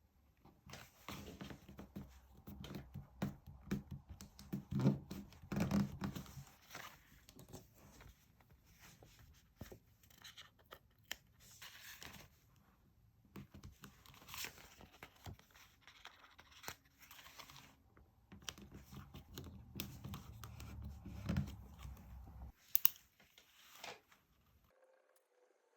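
Paper and stickers handled up close: peeling, tearing and rustling in uneven bursts, busiest at the start and again later on, with a sharp tap near the end.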